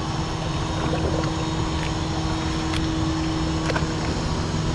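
Boat engine idling steadily, a low hum with a few steady tones under wind and water hiss.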